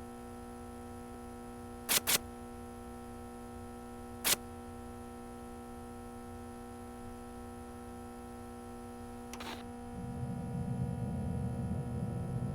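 A steady electrical hum with a few sharp clicks: a quick pair about two seconds in, then single clicks around four and nine seconds. About ten seconds in, a low rumbling noise comes in under the hum.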